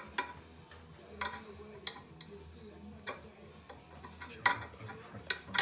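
Adjustable spanner clicking against the metal pipe fittings on a Yong Heng high-pressure compressor head as a fitting is worked: a run of irregular sharp metallic clicks, the loudest a little past halfway.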